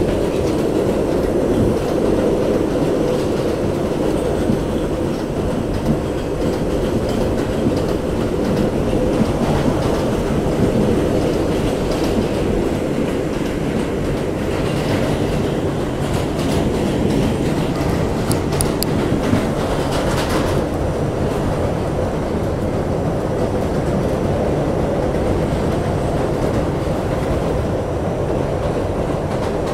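R68 subway car running at speed, heard from inside the car: a steady rumble of wheels on rail with clickety-clack over the rail joints. A few brief high-pitched wheel squeaks come a little past halfway.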